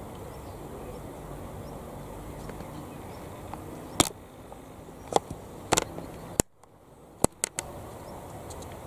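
Steady outdoor background noise broken by half a dozen sharp clicks, with a brief drop to near silence about six and a half seconds in.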